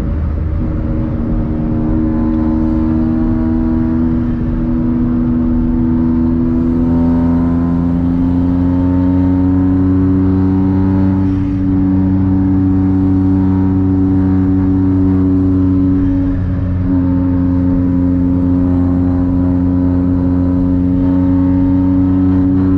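Stage 3 tuned Volkswagen up! three-cylinder turbo engine and exhaust heard from inside the cabin, pulling at highway speed. Its pitch rises slowly for about ten seconds, then holds steady, with two brief dips, as if the throttle is lifted for a moment.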